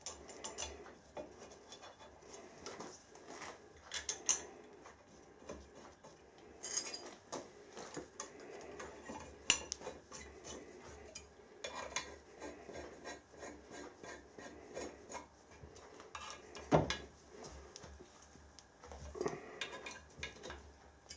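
Light metal clinks, taps and scrapes as a steel vice jaw plate is fitted to a machine vice and its screws are turned in with a hex key, with one sharper knock about three-quarters of the way through.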